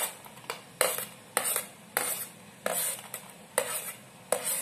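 Steel spoon scraping chopped onion off a plate into a steel bowl of puffed rice, in a series of short scrapes and clinks, about seven strokes, each a little under a second apart.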